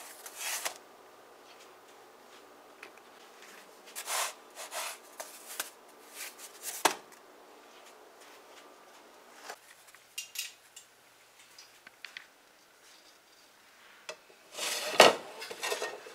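Scattered rubbing and scraping as a cassava roti is pressed by hand and moved about in a nonstick frying pan, with a louder scrape or clatter near the end as it is shifted onto a wire rack. A faint steady hum stops about halfway through.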